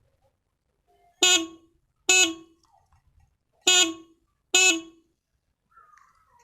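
Motorcycle electric horn sounding four short beeps in two pairs, each a single steady pitch.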